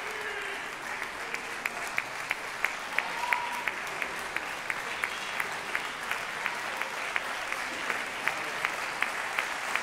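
Audience applause in a concert hall. From about a second in it settles into steady clapping in unison at about three claps a second.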